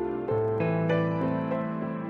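Slow instrumental keyboard music: held notes and chords, with a new note or chord about every half second.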